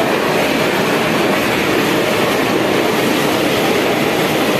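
Water gushing steadily out of an inlet channel and splashing down into a tiled filter bed at a water treatment plant: a constant loud rush.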